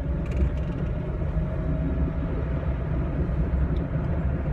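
A car running, heard from inside the cabin: a steady low rumble with a faint, steady whine above it.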